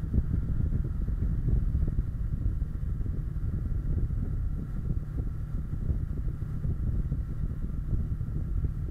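Kawasaki Versys 650 motorcycle riding at a steady speed. Wind rumbles steadily on the bike-mounted camera's microphone, with the engine's drone mixed in and no change in pace.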